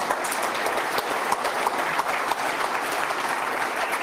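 Lecture-hall audience applauding steadily, a dense crackle of many hands clapping.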